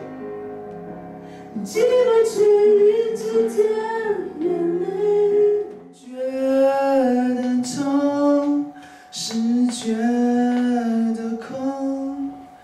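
Solo voice singing a song into a handheld microphone, in held phrases. About six seconds in it changes to another singer and song, sung unaccompanied.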